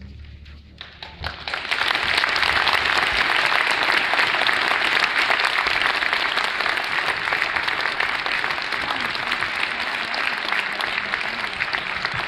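Audience applauding: a few scattered claps, then full, steady applause from about a second and a half in.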